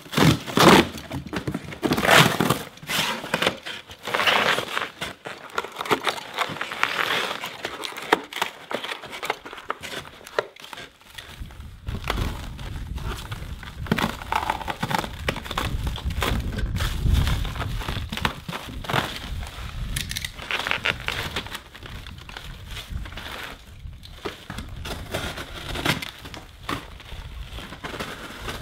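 A cardboard box being slit with a razor knife and its flaps pulled open, then plastic wrapping crinkling and rustling as it is pulled away. A low rumble sits under the rustling through the middle stretch.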